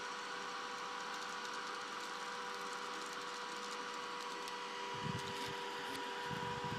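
Two salvaged computer fans in a homemade postal-tube amplifier cooler running steadily: an even rush of air with a faint steady hum and whine. A few low rumbling bursts come in near the end.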